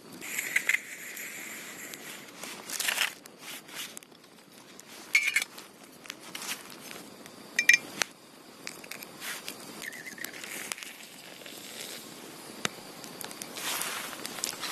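Scattered crackles, clicks and short scrapes of metal camp cookware being handled, with a few brief metallic clinks and a wooden stick stirring in a metal cup.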